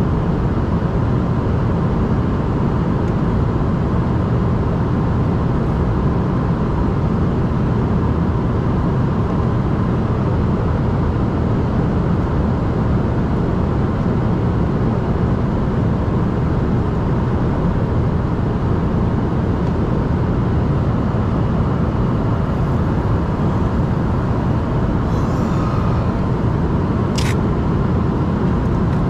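Steady jet cabin noise inside an Embraer ERJ-145: the rush of its two rear-mounted turbofans and airflow, heavy in the low range, with a faint steady whine. A short click near the end.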